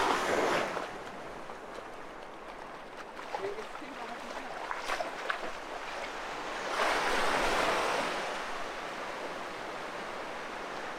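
Ocean surf washing in over shallow water at the shoreline, with a wave rushing in right at the start and another swelling louder about seven seconds in.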